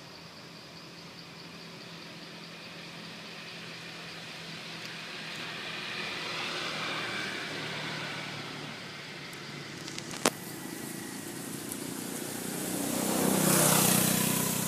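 A motor vehicle passing, its noise swelling twice and loudest near the end. A single sharp click comes about two-thirds of the way through.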